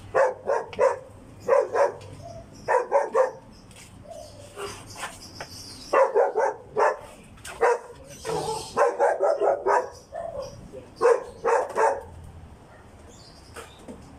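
A dog barking in quick runs of barks, on and off, several bursts with short pauses between.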